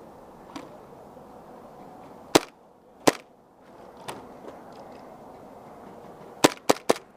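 Airsoft gun firing single shots: two sharp cracks a bit over half a second apart, then a quick run of three near the end.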